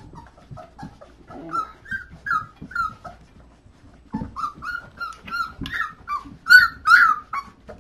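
Young puppies whining and squealing in a quick run of short high cries, loudest near the end. They are frustrated at being unable to reach their standing mother to nurse.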